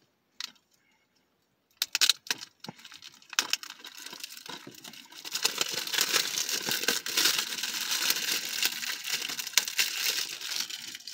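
Plastic shrink-wrap being peeled and crinkled off a DVD case. It starts about two seconds in with scattered clicks and rustles, then becomes continuous crinkling from about halfway through.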